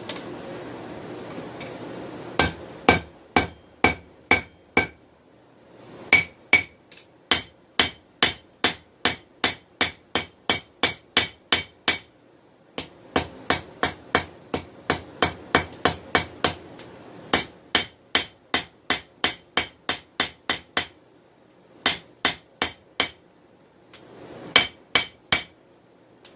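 Hand hammer striking hot 416 stainless steel on an anvil in quick runs of about two to three blows a second, each blow ringing, with short pauses between runs: drawing out the blade of a knife.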